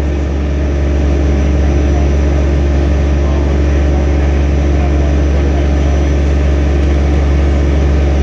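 Heavy site machinery engine running steadily with a deep, even drone, holding a constant speed while a precast concrete chamber ring hangs on its lifting chains.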